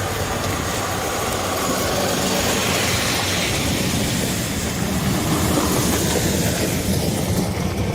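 Heavy machinery running: a steady engine drone with rattling mechanical noise.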